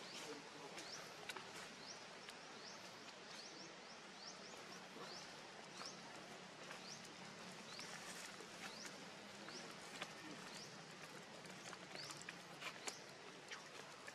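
Faint outdoor background with many short, high, rising chirps repeating every second or so, and a few light clicks.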